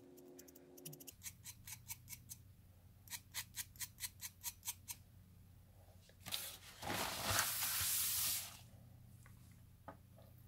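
Hand-held Caran d'Ache pencil sharpener shaving a pastel pencil, its blade cutting in two runs of quick clicks, about five a second. Then a loud rushing noise for about two seconds, and a light tap near the end.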